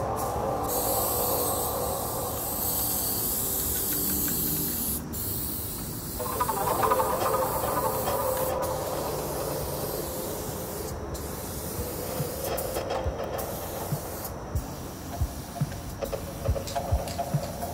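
Aerosol spray-paint cans hissing in long bursts with brief breaks between them.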